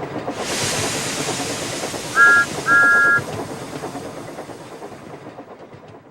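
Steam locomotive sound effect: the engine clatters along on the rails, and a hiss of steam comes in about half a second in. Just after two seconds a two-note whistle gives a short toot and then a longer one, and the sound fades away near the end.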